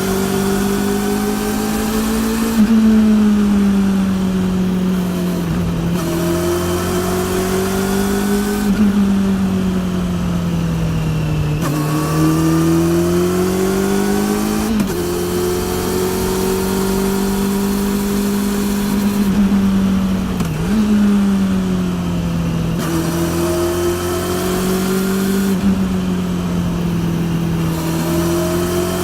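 Honda CB400 NC42's inline-four engine running through a TSR E02 slip-on exhaust, heard from the bike while riding: its pitch rises and falls several times as the throttle is worked, with a few quick dips. Drive-chain noise is mixed in, which the rider calls very loud, from a chain due for replacement.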